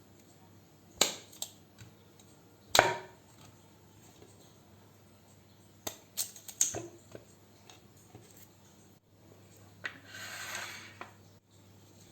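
Kitchen utensils being handled: a few sharp knocks and clinks, the loudest about three seconds in and a quick cluster midway, then a short rushing noise near the end.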